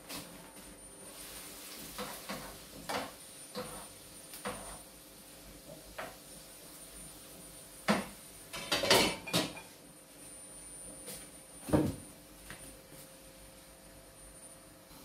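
Pots, pans and utensils clattering at a kitchen stove: a string of light knocks and clinks, a louder flurry of clanks a little past halfway, and one more sharp clank about three-quarters through.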